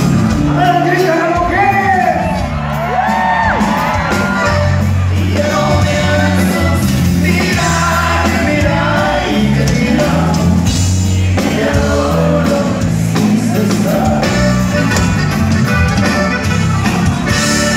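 Live norteño band music with accordion, saxophone and drums, echoing in a large hall, with shouted whoops from the crowd rising and falling in pitch over it, several of them near the end.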